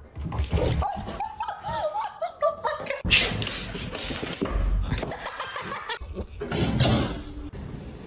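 People laughing and snickering.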